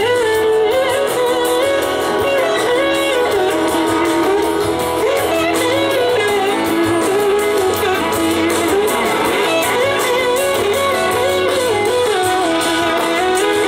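Live band playing: an electric guitar carries a lead melody of gliding, sliding notes over bass guitar and drums.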